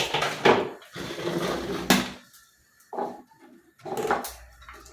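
Kitchen items being handled and set down on a counter: a run of clattering and knocks in the first two seconds, then a few short separate knocks.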